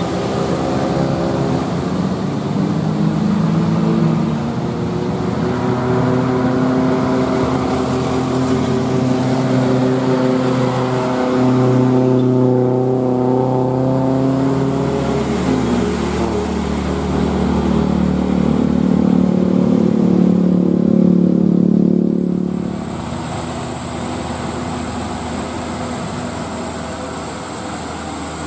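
Diesel engines of light trucks passing one after another under load, each engine note holding steady and then stepping up or down in pitch. About 22 seconds in the loudest engine fades, leaving a quieter engine sound with a steady high-pitched whine.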